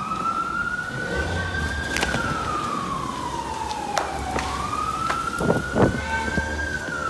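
Fire truck siren on a slow wail, its pitch rising for about two seconds and falling for about two, twice over. A few sharp knocks and a low hum sit underneath.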